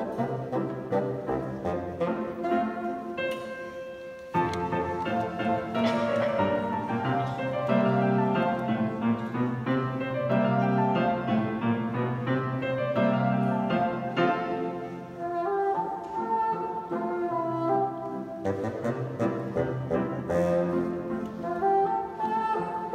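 Bassoon playing a melodic solo in continuous phrases, with a short break about four seconds in before the next phrase.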